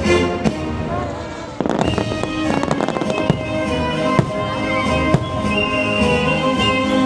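Fireworks bursting over an orchestral show soundtrack: single sharp bangs every second or so, and a dense run of crackling bursts about two seconds in.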